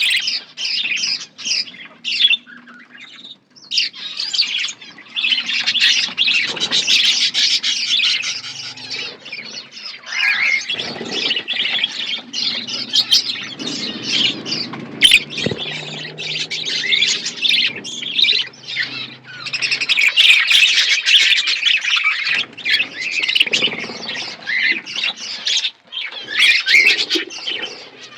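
A flock of budgerigars chattering and chirping, many high calls overlapping, with a short lull a few seconds in.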